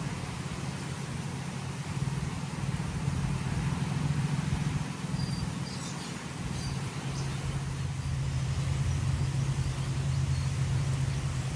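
Steady low mechanical hum over a constant noisy background, with a few faint high chirps about six seconds in.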